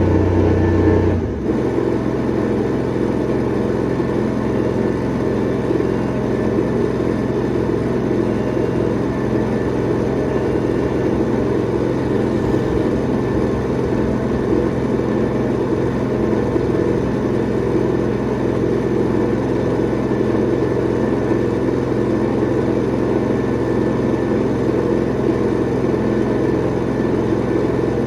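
Engine of a truck-mounted Vanair compressor, welder and generator unit running at a steady speed. About a second in, a deep low hum cuts off and the engine carries on evenly.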